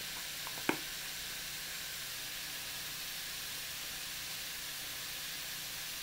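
Broccoli sizzling steadily in an oiled wok, with a single sharp tap about a second in.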